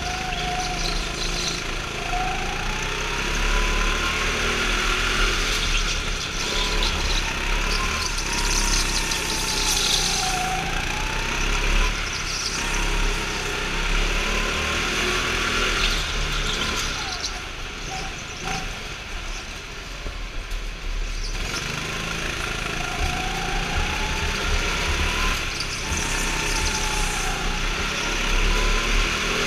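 Go-kart motor heard from onboard while lapping, its pitch rising and falling every few seconds as the kart speeds up out of corners and slows into them, over a steady low rumble. It dips quieter for a few seconds past the middle.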